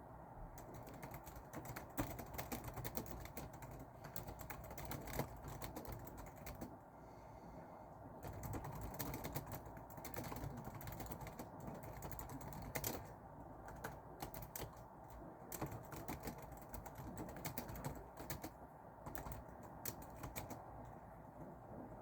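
Computer keyboard typing: quick irregular runs of key clicks with short pauses between them, over a steady low background noise.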